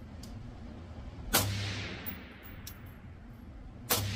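Two suppressed rifle shots about two and a half seconds apart, the first about a second and a half in and the second near the end, with faint clicks between them. The rifle is a piston-converted AR-15 with its adjustable gas block set five turns into bleed-off for the suppressor, so it cycles cleanly.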